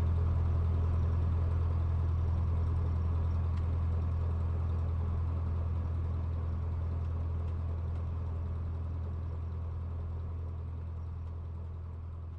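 Cessna 150's four-cylinder Continental O-200 engine and propeller droning steadily in flight, slowly fading out.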